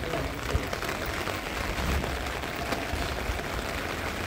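Steady rain falling on a wet paved street, an even hiss.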